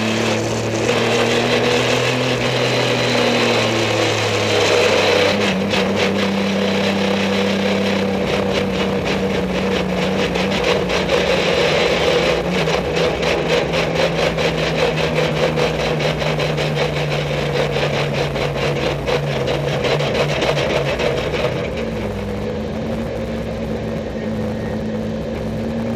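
Race car engine heard from inside the car, running steadily with its note slowly falling. It drops lower and quieter for the last few seconds as the car slows into the pit lane.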